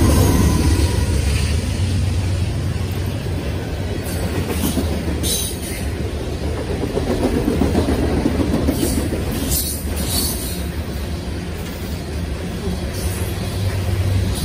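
Diesel-hauled freight train passing close by. The locomotive's low engine drone fades in the first moments, then the freight cars roll past with a steady rumble and wheel clatter. A few brief high-pitched wheel squeals come through midway.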